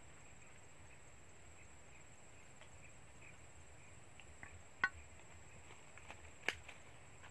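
Faint outdoor background with a thin steady high tone, broken by a few sharp clicks or taps, the loudest a little under five seconds in and another about six and a half seconds in.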